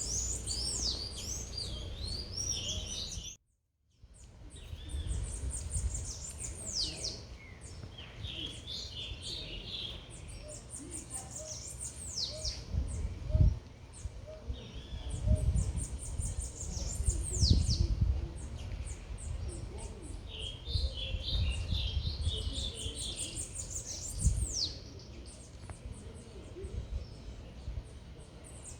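Small songbirds chirping and twittering again and again, many of the notes quick falling whistles, over a steady low rumble of city background noise. The sound cuts out completely for about half a second a few seconds in, and a couple of dull thumps come later.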